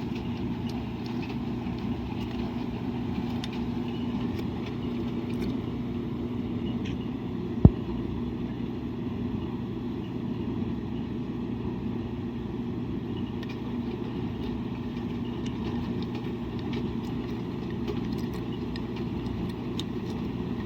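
Washing machine running with a steady motor hum, broken once by a single sharp click about eight seconds in.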